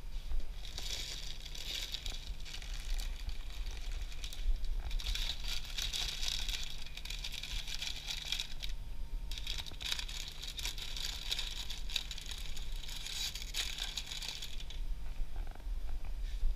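Plastic snack bags crinkling as they are handled, in several irregular spells, over a steady low hum.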